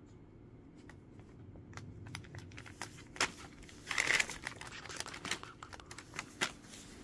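Brown paper bag crinkling and crackling in scattered bursts as a cat shifts on it, the loudest burst about four seconds in.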